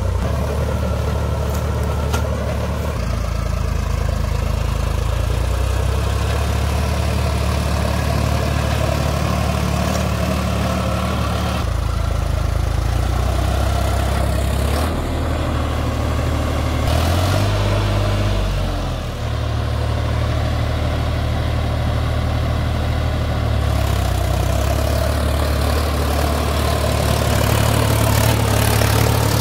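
Sonalika DI-47 RX tractor's diesel engine running steadily while driving a Shaktiman rotavator, with the rotavator churning alongside. About two-thirds of the way through, the engine note sags briefly and picks back up.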